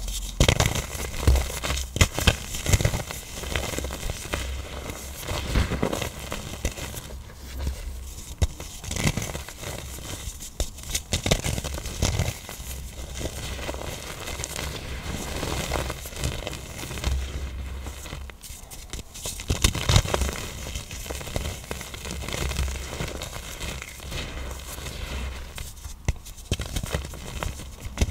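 Hard-set blocks of black iron oxide being crushed, breaking up with continual crunching and crackling and scattered sharp cracks. The cracks are loudest in the first few seconds and again about two-thirds of the way through.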